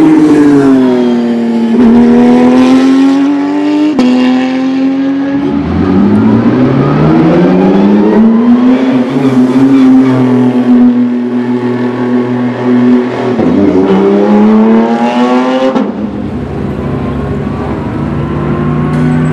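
Racing car engines at high revs, several cars in turn: revs climb in long pulls and drop back. Near the end the Porsche 992 GT3 Cup's straight-piped flat-six approaches under power, its pitch slowly rising.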